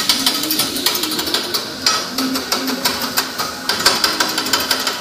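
Metal spatulas clacking and scraping on a steel teppanyaki griddle in quick, uneven taps as the chef chops and turns the food, over the sizzle of frying.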